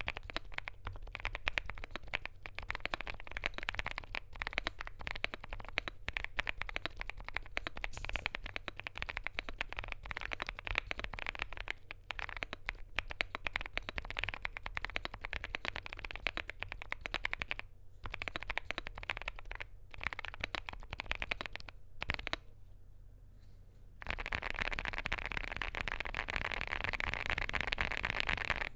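Typing on a Knife Join65 mechanical keyboard fitted with lubed Gazzew Boba U4T tactile switches on an FR4 plate, under PBT keycaps: a quick, uneven run of keystroke clacks. After a brief pause about 22 seconds in, the keystrokes come faster and louder and run together into a near-continuous clatter.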